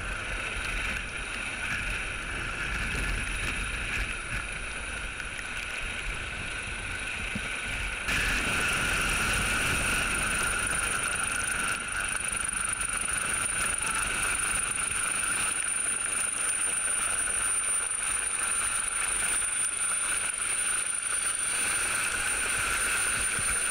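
Hovering rescue helicopter heard from just below it: steady rotor and turbine noise with a thin high whine and rotor downwash buffeting the microphone. It gets louder about eight seconds in as the helicopter comes closer overhead.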